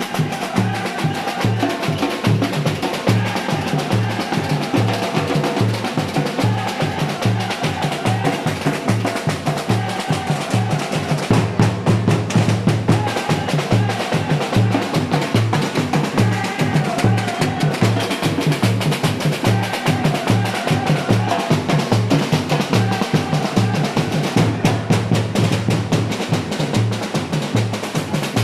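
Samba batucada: a bateria percussion ensemble playing a steady groove. Deep surdo drums beat a regular low pulse under dense snare and small-percussion patterns.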